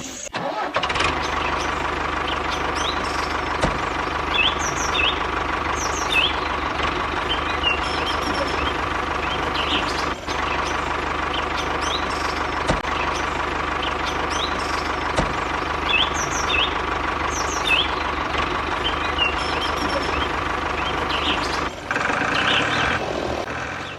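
An engine running steadily at idle, with birds chirping now and then.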